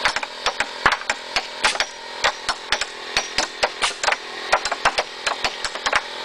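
Claw hammers striking wooden boards in quick, uneven blows, several a second, some overlapping as if more than one hammer is going at once.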